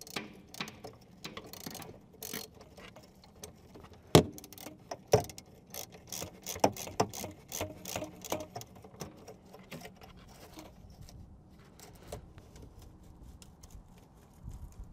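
Metal hand tools working loose the bolts and exhaust pipe of a diesel bunk heater: many irregular clicks and ticks, with sharper knocks about four and five seconds in, thinning out after about ten seconds.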